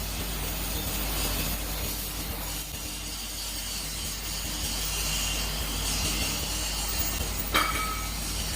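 Steady hissing of a torch cutting steel plate. About seven and a half seconds in comes one sharp metallic knock with a brief ring.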